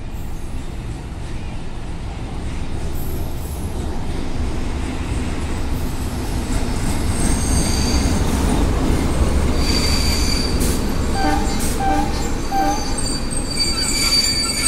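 CFR class 060-DA1 diesel-electric locomotive's Sulzer engine rumbling as the train comes in and passes close, getting louder. From about halfway in, high metallic squeals come from the wheels and brakes, strongest near the end.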